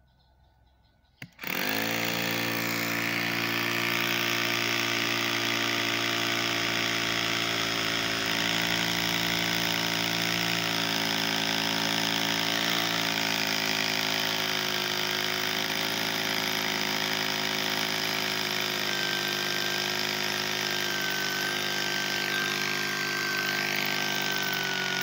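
Electric rotary hammer drill starting up about a second in and running steadily, drilling into the concrete, then stopping at the very end.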